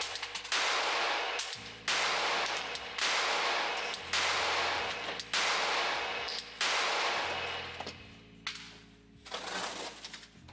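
Glock 43X pistol firing a string of shots about one a second, each shot followed by a long echoing decay; the last couple of shots are quieter.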